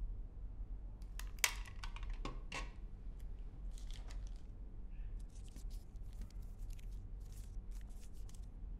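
Short crisp rustles and clicks of objects being handled, in uneven clusters, the loudest about a second and a half in, over a steady low hum.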